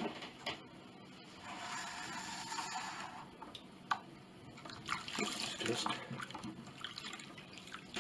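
Water sloshing, splashing and dripping in a small plastic tub as a hand swishes and squeezes a part being washed in warm water.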